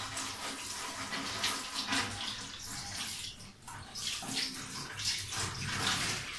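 Running water, as from a tap, splashing unevenly.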